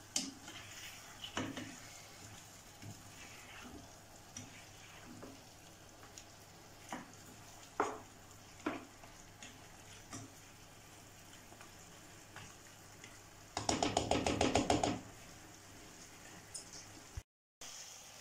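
A spatula stirring chicken stew in a pan over a faint sizzle, with scattered single knocks against the pan. About fourteen seconds in comes a second or so of rapid scraping.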